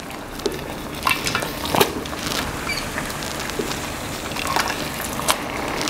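Olive oil and lemon juice sauce sizzling in a stainless steel frying pan as hot, wet linguine goes in, with a steady hiss and scattered sharp crackles and pops.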